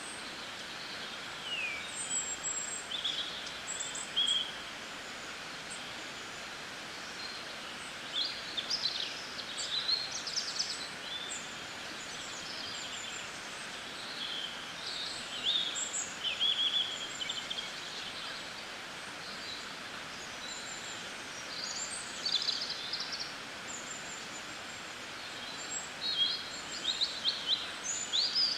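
Small birds chirping and calling in scattered bursts of short, quick notes over a steady background hiss of outdoor ambience.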